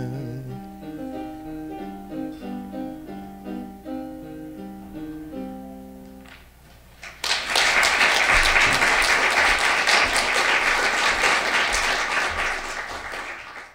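A man's held final sung note of a Russian romance ends, and the instrumental accompaniment plays a closing phrase of single notes for about six seconds. An audience then applauds for about six seconds; the applause cuts off at the end.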